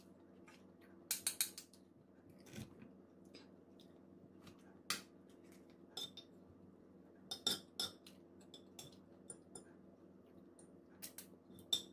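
Metal fork and spoon clinking and scraping against ceramic plates in scattered sharp clicks: a quick run of four about a second in, then single clinks every second or two, and a few more together near the end. A faint steady hum runs underneath.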